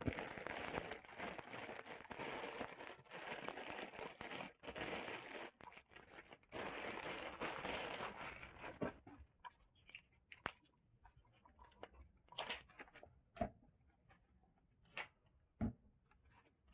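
Packaging crinkling and rustling as a headset is unwrapped, for about nine seconds, then a scattering of short light clicks and taps as it is handled.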